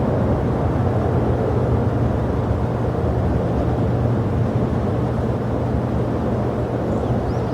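Steady rumble of jet airliner engines, with a constant low hum under an even wash of noise.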